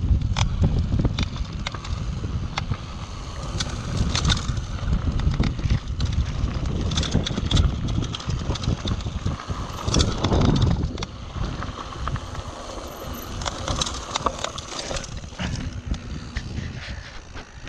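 Mountain bike riding fast downhill on a rocky dirt trail: tyres crunching over gravel and the bike rattling and clicking over bumps, with wind buffeting the microphone. The noise eases near the end as the tyres roll onto smooth pavement.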